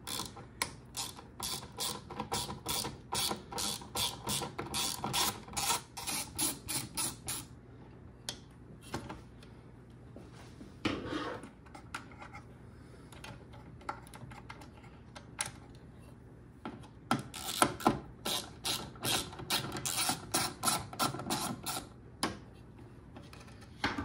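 A 1/4-inch drive ratchet clicks fast as it turns a T20 Torx bit on an extension, working the microwave magnetron's mounting screws. There are two runs of clicking: one for about the first seven seconds, and another starting about seventeen seconds in, with only scattered handling sounds between.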